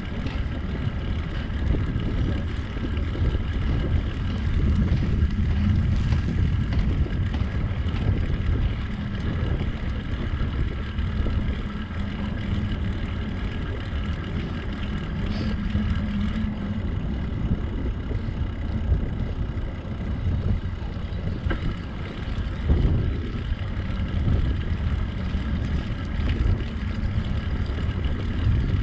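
Wind buffeting the microphone of a camera on a moving bicycle: a steady, uneven low rumble.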